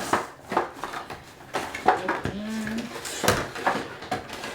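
Hard plastic toy parts and packaging clattering and knocking as a toy is pulled out of its box: a run of irregular sharp clicks and knocks.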